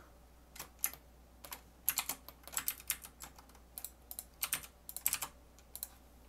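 Computer keyboard keys tapped in short, irregular bursts of clicks.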